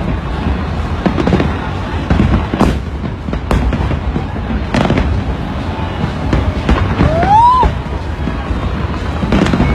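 Fireworks exploding: several sharp bangs at uneven intervals over the dense noise of a large crowd. About seven seconds in, a whistle rises and then falls.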